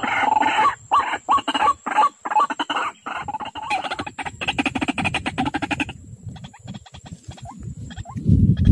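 White-breasted waterhen (ruak-ruak) calling: a run of repeated harsh notes, speeding into a faster series about halfway through, then fading to scattered fainter notes. A loud low rumble comes in just before the end.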